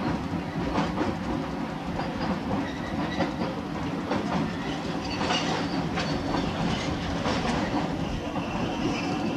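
Boston Orange Line rapid-transit train running on the elevated line, heard from aboard the lead car: a steady rumble with wheels clicking over the rail joints at irregular intervals.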